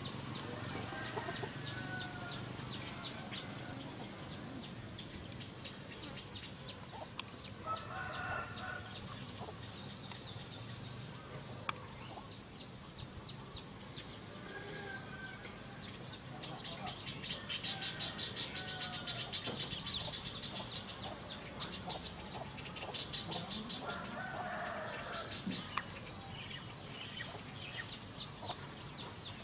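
Domestic chickens clucking in a few short bouts, over a steady fast, high ticking chatter that swells for a few seconds in the middle.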